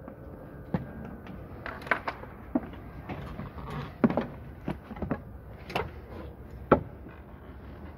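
Irregular knocks and clunks as someone climbs aboard a parked English Electric Canberra bomber, hands and shoes striking the airframe and entry steps. There are about a dozen short impacts, the two loudest about halfway through and shortly before the end.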